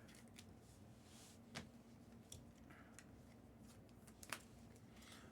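Near silence with a few faint, scattered clicks and light rustles of trading cards and packs being handled, the clearest about one and a half seconds in and near the end.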